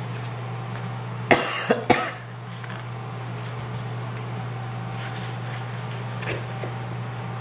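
A woman with a cold coughing, a longer cough about a second in and a shorter one just after, over a steady low hum.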